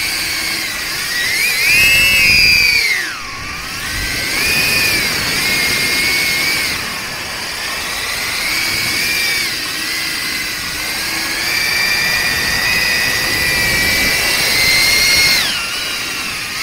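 Brushless motors and ducted five-blade 63 mm propellers of a Darwin FPV CineApe 25 cinewhoop drone whining in flight, the pitch rising and falling with throttle. Loudest and highest about two seconds in, with sharp drops about three seconds in and near the end.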